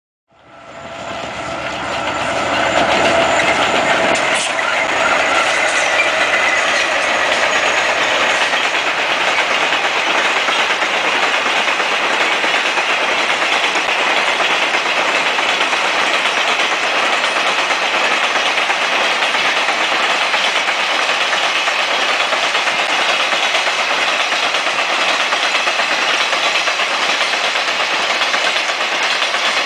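A diesel-hauled cattle train passing close by: the locomotives' engine drone is heard over the first few seconds as the sound swells in, then a long string of cattle wagons rolls past with steady, loud wheel-on-rail rumble and clatter.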